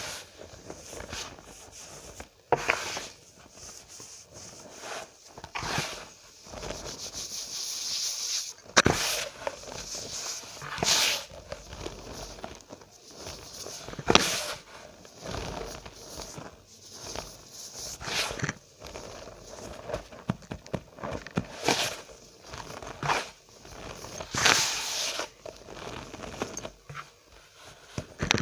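Cornstarch powder squeezed and crushed by hand, crunching and squeaking in irregular bursts, with a few louder, sharper crackles scattered among them.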